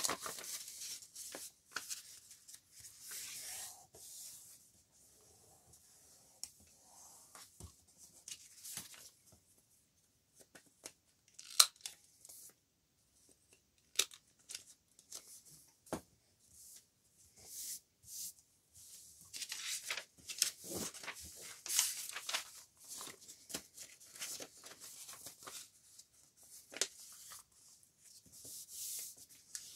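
Sheets of printed paper rustling and sliding as they are handled and shuffled, with scattered sharp clicks of a handheld corner-rounder punch trimming page corners. The loudest click comes a little before halfway.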